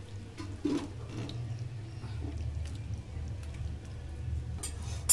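Thick curry being scraped with a metal spatula out of a tilted aluminium kadai into a steel bowl: wet sliding and scraping with light knocks of the spatula against metal. A sharp metallic clank comes at the very end.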